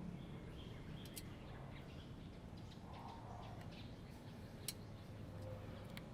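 Faint outdoor ambience: birds chirping over a low steady hum, with a few small sharp clicks, the sharpest a little past the middle.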